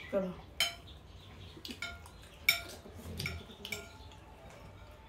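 Metal spoons and forks clinking and scraping on plates during a meal: about six sharp, separate clinks, the loudest about halfway through.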